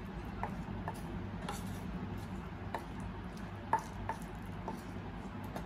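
Wooden spatula scraping and tapping against a pan as stir-fry is served onto a bowl of rice: scattered light clicks and scrapes, the sharpest a little past the middle, over a steady low hum.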